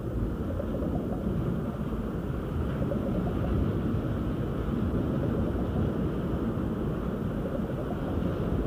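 Steady low rumbling noise with no clear rhythm or tone.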